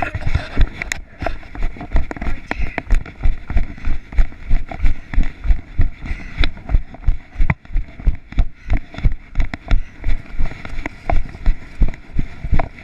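A person walking briskly, each footfall a heavy thud through the body-worn camera, about three to four steps a second, over gravel and then grass.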